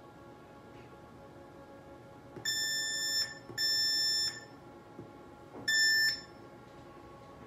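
Smart-Wave BS-SWT2X shockwave therapy machine's control unit giving three electronic beeps, each a steady high tone under a second long, as its touchscreen is pressed to scroll through menus.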